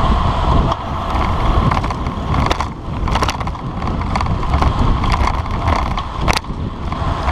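Wind buffeting the microphone of a handlebar-mounted camera on a road bike at speed, with rumbling tyre and road noise and a few sharp knocks near the middle and near the end.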